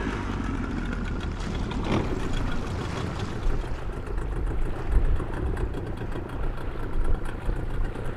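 Motorboat engine running close by, a steady low rumble.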